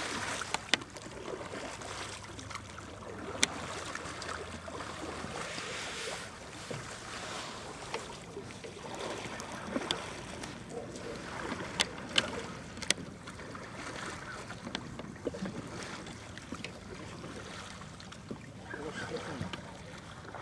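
Canoe on the water: an even wash of water sound with a scattering of sharp knocks and clicks on the hull.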